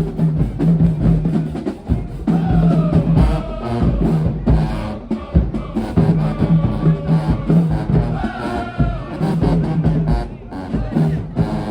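High school marching band playing: drums beating a fast rhythm under a repeated low bass note, with a melody line above.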